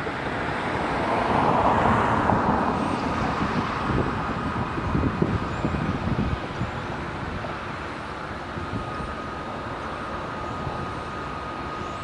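Outdoor motor vehicle noise: a steady rumble that swells as something passes, loudest about two seconds in, with a few knocks a little later and a faint steady whine over the last few seconds.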